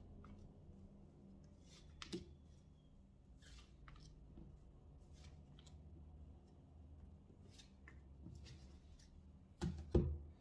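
Tarot cards dealt one at a time onto a table: faint soft clicks and slides of card on card. Near the end come two sharp knocks as the deck is tapped square on the tabletop.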